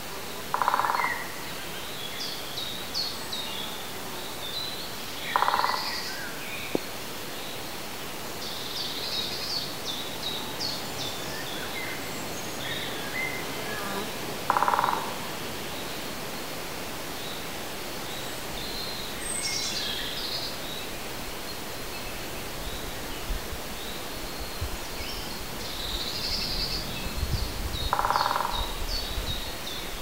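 Outdoor woodland ambience: a steady hiss of background noise with birds chirping and singing high up throughout. A louder half-second note sounds four times, and a low rumble comes in near the end.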